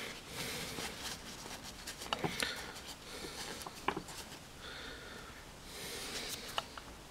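Faint rustling of a paper shop towel rubbed by hand over a threaded cap-head bolt, wiping off dirt, with a few light clicks.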